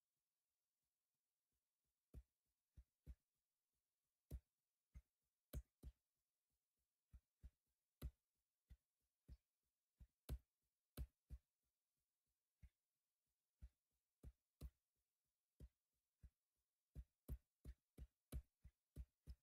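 Faint, sharp clicks from a computer mouse or keyboard while a web page is being scrolled. Each click has a slight thud, and they come irregularly, about two a second, with short pauses.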